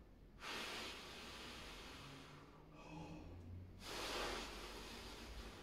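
Air blown steadily out through the lips around a pencil held in the mouth, twice, each blow about two seconds long: a beginner's clarinet embouchure exercise, blowing without pressure so the air passes freely.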